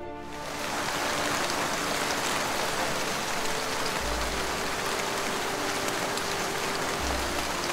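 Steady hiss of rain-like water ambience, with a soft held tone of ambient music faintly underneath.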